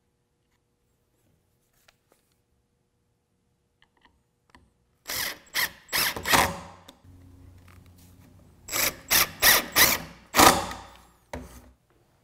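Cordless driver driving screws into MDF, run in short, loud bursts in two groups a few seconds apart, after a few quiet seconds.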